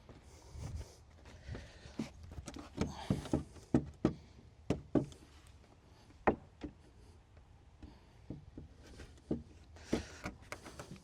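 Irregular knocks and clatter of tools and building materials being handled, the sharpest hits about four and six seconds in.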